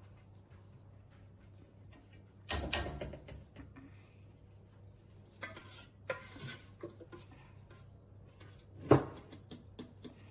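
Kitchen utensils knocking and scraping against dishes and pans: a scrape about two and a half seconds in, more clatter around six seconds, and a sharp knock near nine seconds, the loudest.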